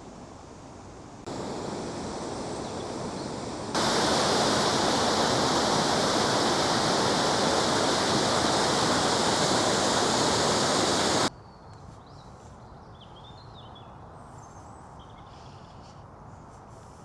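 Steady rushing water from the River Kennet, getting louder in two sudden steps and cutting off abruptly about eleven seconds in. Faint bird chirps remain after it.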